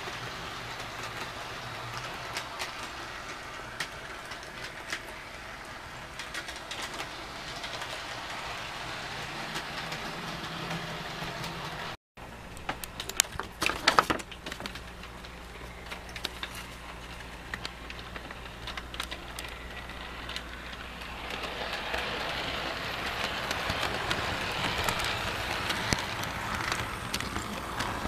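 HO-scale model train running around the layout: the locomotive's small electric motor hums and the wheels click along the rails. A cluster of sharp knocks about halfway through comes from a hand handling pieces on the layout, and the running noise grows louder in the last third.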